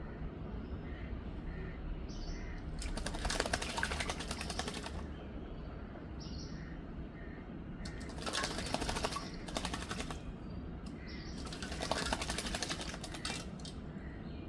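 Myna bird bathing, fluttering its wings in the water: three bursts of rapid splashing flutter, each one to two seconds long, the first about three seconds in.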